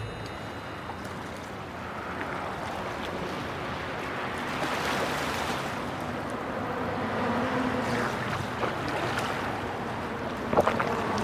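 Wind and water lapping at a rocky riverbank: a steady rushing hiss that swells a little in the middle. A few light taps come near the end.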